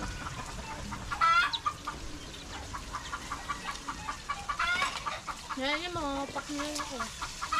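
Chickens clucking over and over in quick short notes, with a few louder squawks and a longer drawn-out call about six seconds in.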